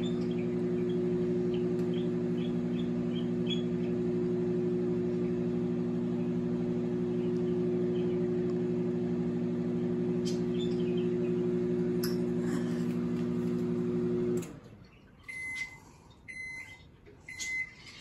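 Microwave oven running with a steady electrical hum, which cuts off suddenly about fourteen seconds in. Four short high beeps follow, signalling the end of the heating cycle.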